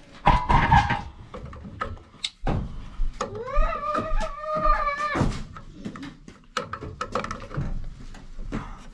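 Metal parts and tools being handled while a gas boiler's pilot assembly is taken apart: scattered clicks and knocks, loudest about half a second in. Near the middle comes a pitched squeal about two seconds long.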